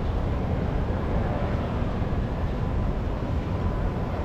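Steady low rumble and hum of background noise in a busy indoor train-station concourse, with a faint steady tone.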